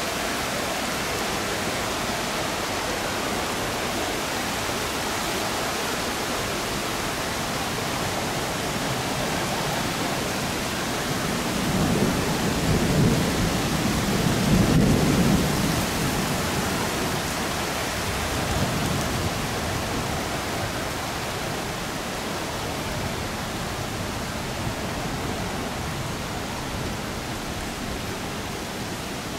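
Heavy cloudburst rain, a steady hiss of rainfall throughout. About halfway through a low rumble of thunder swells for a few seconds and fades.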